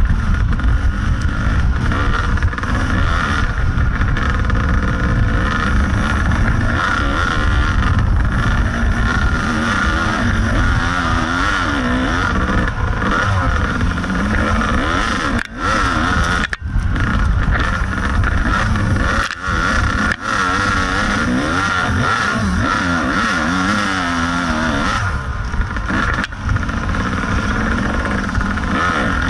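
Kawasaki KDX 220 two-stroke dirt bike engine under way on a trail, its revs rising and falling as the rider works the throttle, with a few brief sudden drops a little past the middle.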